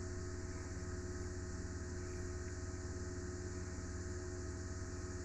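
A steady low hum with a faint, even high hiss over it, unchanging throughout; no distinct chewing or crunching stands out.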